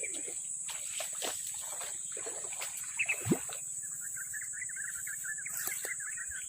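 Steady high-pitched insect drone, with scattered clicks and rustles in the first half and a fast run of chirps from about four seconds in.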